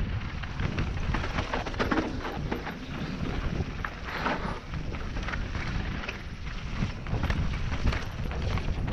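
Mountain bike running fast down a dirt and gravel trail: a steady rush of tyre and wind noise on the microphone, broken by frequent sharp clattering knocks as the bike hits bumps and stones.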